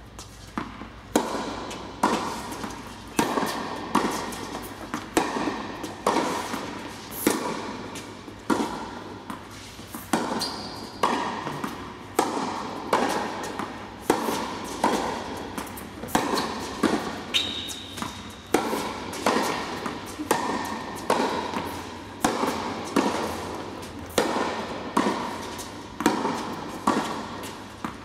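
Tennis balls struck back and forth by racquets in a continuous baseline rally, about one sharp hit or bounce a second, each echoing in the indoor court hall. Two brief high squeaks come in partway through.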